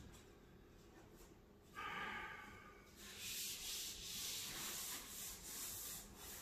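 Wet scrubbing pad rubbed back and forth over a sanded wooden countertop, a steady hiss that swells and fades with each stroke. This is the water wash of the bare wood before staining. A short rushing sound comes about two seconds in.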